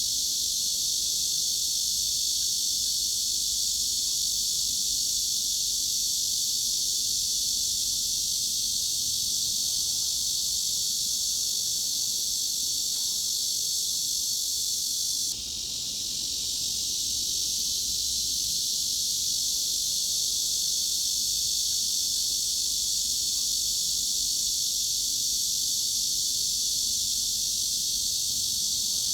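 Cicadas buzzing in a steady, shrill, unbroken drone with all its energy high up and nothing low. It dips briefly about halfway through, then carries on unchanged.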